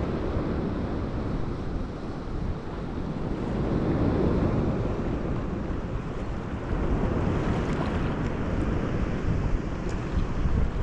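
Rough sea surf washing onto the shore, swelling and easing, with wind buffeting the microphone.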